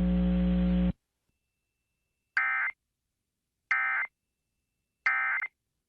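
A steady electrical hum under the weather-radio broadcast cuts off about a second in. Then the EAS end-of-message code sounds three times, about a second and a half apart: short, harsh digital data bursts that mark the end of the alert.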